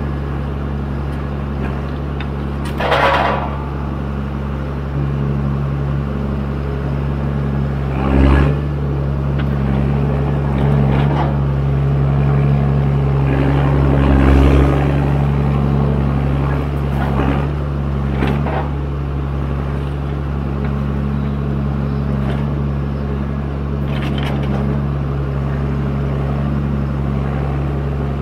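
John Deere 1410D forwarder's 6.8-litre diesel engine (the older, loud pre-Eco3 version) running steadily under working load. Its note strengthens about five seconds in. Several short knocks and clatters break in, the sharpest about three and eight seconds in.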